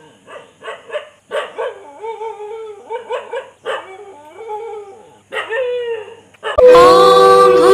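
A dog whining and yelping in short, repeated cries that bend in pitch. About six and a half seconds in, loud music with a long held note cuts in.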